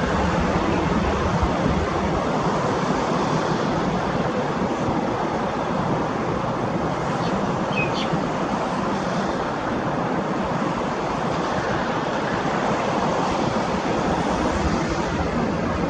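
Steady, distant rumble of a jet airliner's engines, the EVA Air Airbus A321-211 with its CFM56 turbofans. A brief high chirp sounds about eight seconds in.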